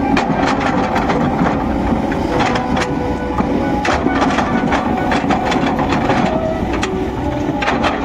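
Kobelco SK210 hydraulic excavator working: its diesel engine and hydraulics running with a steady drone while the bucket digs into soil, with frequent irregular clanks and knocks throughout.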